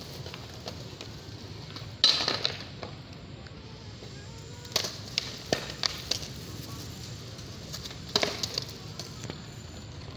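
Skateboards clacking and knocking on concrete: one sharp loud clack about two seconds in, a few quicker knocks around the middle and again near the end, over a steady low rumble.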